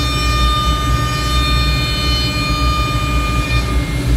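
A CNC router running a job: a steady high spindle whine with overtones over the low, continuous drone of a three-phase fine dust extractor.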